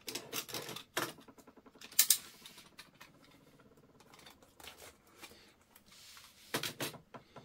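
Fingers scratching and picking at brown packing tape on a cardboard box, with scattered sharp crackles and rips of tape: the loudest about two seconds in, and a few more close together near the end.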